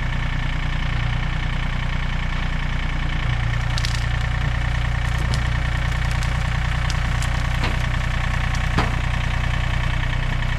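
John Deere 3025D compact tractor's diesel engine running steadily at a constant speed while the tractor pulls a small tree out with a chain from its loader bucket. A few sharp cracks and clicks sound over it, the loudest near the end.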